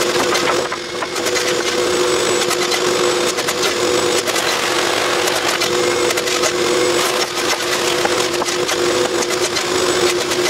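Wooden stakes clattering and knocking against each other as they are handled and stacked, many quick wooden clicks over the steady hum of a machine running.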